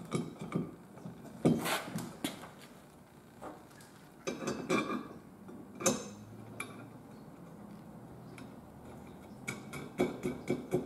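Metal bolts and wing nuts clinking and knocking against the square metal tubes of tree-stand ladder braces as they are fitted by hand: scattered sharp clicks and taps, the loudest a little under two seconds in and about six seconds in.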